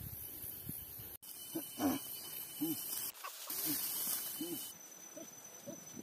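A series of short, low hooting calls from an animal, repeating about once every three-quarters of a second after an abrupt cut about a second in.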